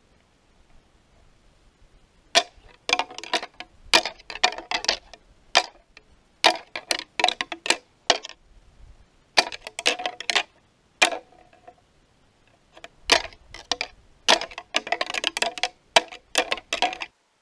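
A pair of deer antlers rattled together in several bouts of rapid clacking and grinding, with short pauses between them, a hunter's rattling to imitate two bucks sparring and draw a buck in.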